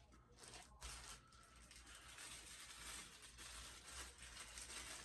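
Faint rustling and crinkling of plastic packaging with a few small clicks, as statue parts are handled and unwrapped.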